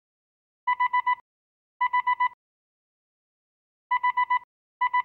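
A car's blind-spot warning beeper sounds four bursts of four quick, high beeps on one tone, warning that the rear sensors have detected a vehicle in the adjacent lane. The last burst starts near the end.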